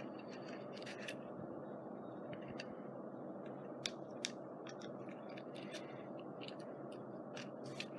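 Scattered light clicks and scratches from paper and fabric being handled and pressed down on a scrapbook page, over a steady background hiss.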